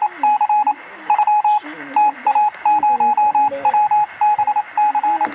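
A quick series of short electronic beeps, all at one pitch, coming in uneven clusters, over a muffled voice.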